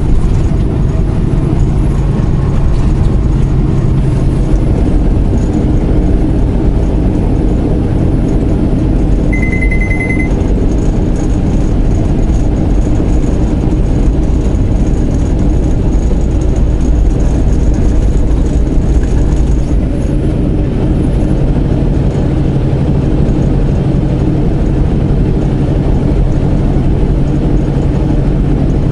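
Semi-truck driving at highway speed, heard from inside the cab: a steady diesel engine drone and road noise. A short high beep sounds about ten seconds in.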